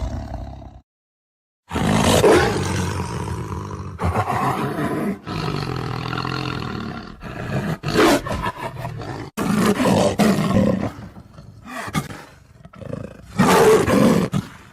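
Leopard roaring: a string of rough calls with short breaks, after a brief silence near the start. The loudest calls come about two seconds in and near the end.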